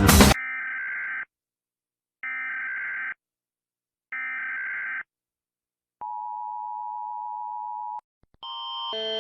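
Emergency Alert System SAME header: three buzzy digital data bursts of about a second each, a second apart, followed by a steady two-second attention tone. Near the end a different, louder multi-tone alarm begins, swelling in.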